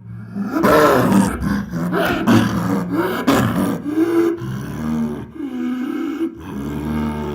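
Chinese leopard growling and roaring: a quick series of harsh, loud calls over the first few seconds, then longer calls with a clearer pitch.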